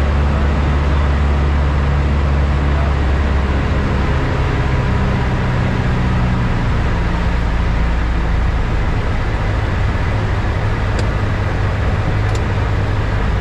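Light aircraft's engine and propeller droning steadily, heard inside the cockpit; the low engine note shifts partway through.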